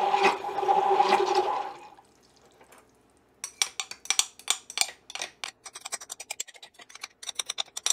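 Handheld immersion blender whirring in a jar of homemade whipped salad dressing for about two seconds, then switched off. After a short pause, its metal shaft clinks and taps repeatedly against the glass jar.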